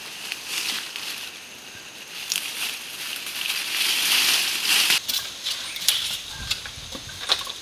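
Dry leaf litter rustling and crackling as a person kneels, gets up and moves through it, with a steady high hiss that swells toward the middle and many short clicks.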